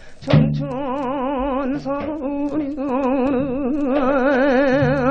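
Korean seodo sori folk singing from an old Victor 78 rpm record transfer: after a short break the singer comes in about a third of a second in and holds one long note with a wide, slow vibrato.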